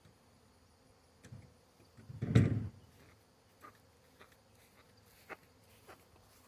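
Honey bees buzzing faintly around an open swarm catch box, with a few light knocks and one louder thump about two seconds in.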